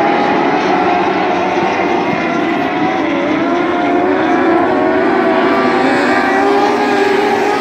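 A pack of dwarf race cars, driven by motorcycle engines, racing on a dirt oval: several engine notes overlap and rise and fall as the cars go through the turns.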